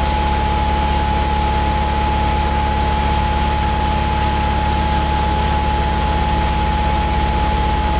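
An engine running at a steady speed: a low, even drone with a steady high whine over it.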